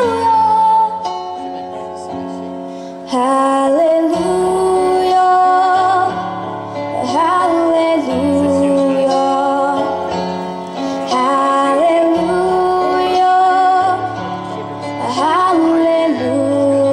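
Music: a female voice sings long held notes with vibrato over slow, sustained accompanying chords.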